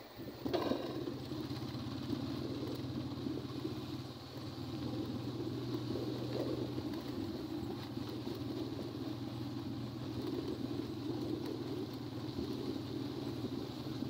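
A small motor vehicle running steadily as it travels along a road: a constant low hum under rough road rumble.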